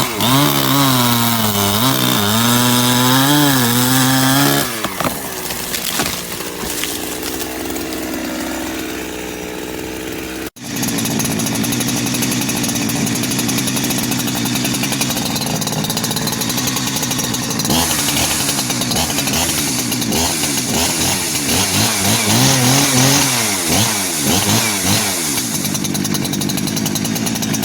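Greencut GS750X 75cc two-stroke petrol chainsaw running hard, its engine pitch dipping and climbing back as if under load in a cut. It drops quieter for a few seconds, breaks off abruptly about a third of the way in, then comes back loud and revving for the rest.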